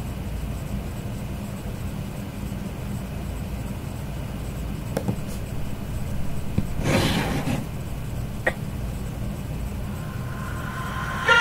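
A steady low rumble of background noise, with a few faint clicks and a brief rustle about seven seconds in.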